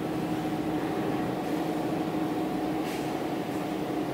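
Wuxi WD269E3TAD50 diesel engine of a 500 kW standby generator set running at a steady speed, a constant even hum with no change in pitch.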